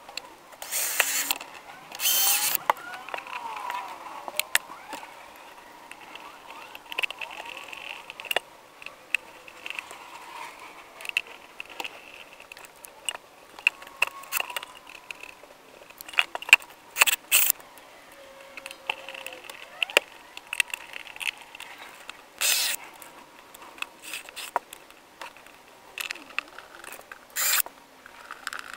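Cordless drill run in several short bursts, drilling holes and driving the mounting screws, with clicks and knocks of handling between the bursts.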